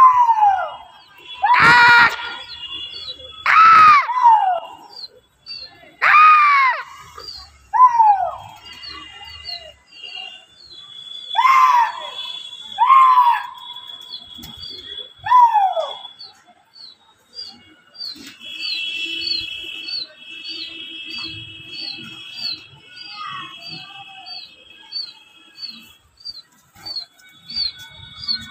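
Loud, shrill cries that fall in pitch, about eight in the first half, then fading to quieter calls. A small bird chirps steadily underneath, about twice a second.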